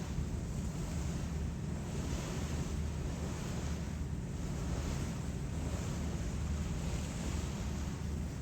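Passenger ferry under way: water rushing along the hull in repeated swells, with wind on the microphone, over the steady low drone of the ship's engines.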